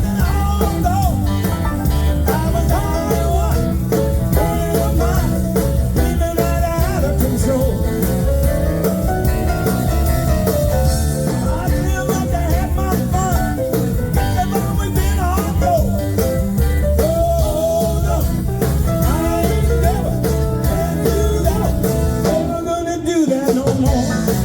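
Live blues band playing, a melody line winding over a steady bass and rhythm; no words are sung.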